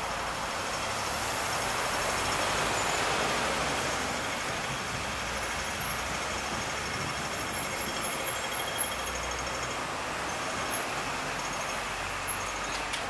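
City street traffic: a steady rush of passing vehicles that swells as one goes by about two to three seconds in, with a few faint ticks near the end.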